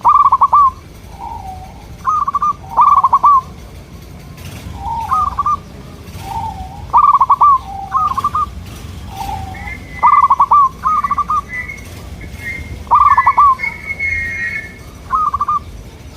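Zebra doves (perkutut) cooing: short, stuttering, trilled coo phrases repeated every second or two, with some phrases answering others. Higher chirping notes overlap in the second half.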